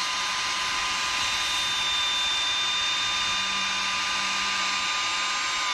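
Corded circular saw running at full speed through a pine board, a steady high motor whine over blade noise.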